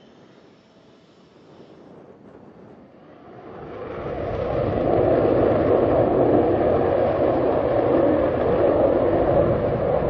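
A pair of Panavia Tornado jets on the runway at take-off power, afterburners lit, their twin RB199 engines giving a loud, steady jet roar. The roar swells in over about a second, after a few quieter seconds.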